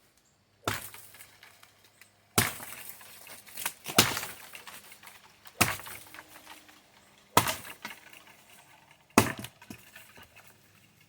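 A sword blade chopping into a tree's wood with six hard strikes, evenly spaced a little under two seconds apart, each a sharp crack with a short ring after it.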